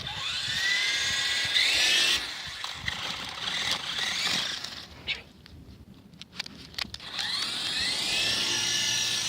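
Small electric motor and rotor of a toy RC helicopter spinning up with a rising whine, running steadily for about two seconds, then winding down unevenly. After a quieter stretch with a few clicks, it spins up again with a rising whine about seven seconds in and runs steadily.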